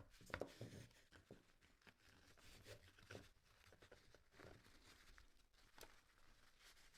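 Near silence with faint handling noises: a few soft rustles of fabric and light clicks as a small plastic arm is worked into a cloth jumpsuit sleeve.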